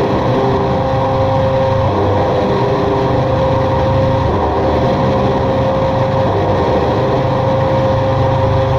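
Drone music: a dense, steady wall of sound with held tones over a low rumble. One tone stays sustained throughout, while a second, lower one drops out about two seconds in.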